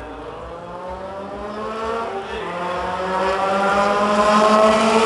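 Race car engine approaching on the circuit: its note climbs steadily as it accelerates and grows louder, coming close near the end.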